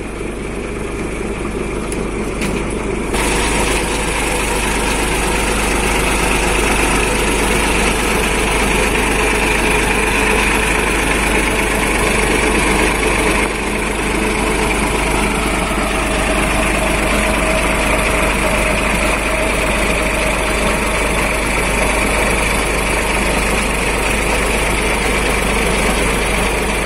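A heavy diesel engine running steadily. It gets louder about three seconds in.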